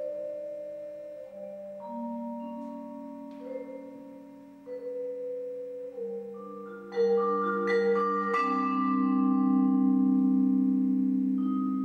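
Yamaha vibraphone played solo with four mallets: soft, slow chords and single notes that ring on for several seconds, then a louder cluster of chords struck about seven seconds in.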